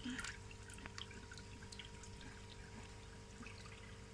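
Faint water dripping and trickling in small scattered drops, over a faint steady hum.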